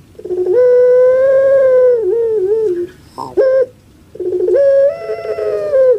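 Female ringneck dove (puter) giving its rhythmic crying call: a long held note that breaks into a few short wavering notes, a brief note a little after halfway, then another long held note near the end.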